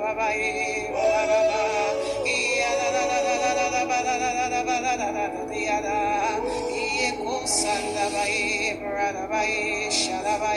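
A voice singing spontaneously in tongues, with held, wavering notes over a sustained music backing.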